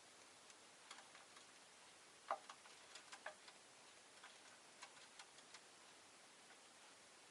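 Near silence with faint, irregular small clicks and ticks, one louder click about two seconds in.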